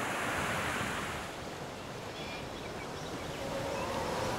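Surf washing up a sandy beach, a steady rushing wash that eases after about a second. Faint high chirps are heard around the middle, and faint steady tones come in near the end.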